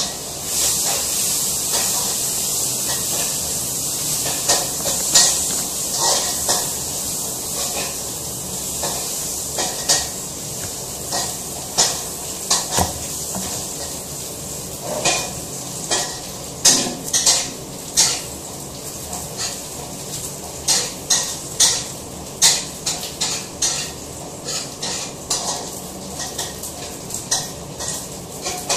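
Dry, papery garlic skins crackling and rustling as cloves are peeled by hand with long fingernails. The short crackles and clicks come sparsely at first and grow quicker and denser in the second half, over a steady hiss.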